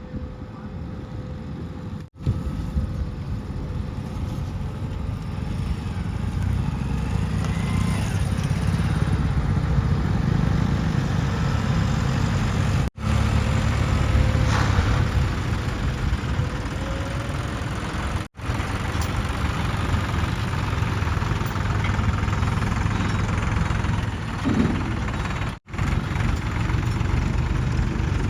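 Heavy diesel machinery engines running steadily at a sand-loading site, with the sound cut off abruptly four times, as at edits between clips.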